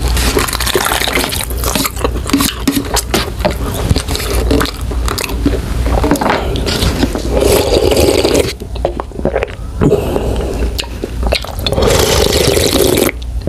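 Eating kimchi stew ramen: chopsticks clicking and scraping in the ramen cup, noodles slurped and chewed, and near the end broth slurped straight from the cup.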